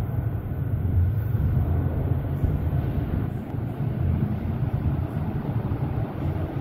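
Steady low rumble of a TTC Bombardier Toronto Rocket subway train approaching through the tunnel.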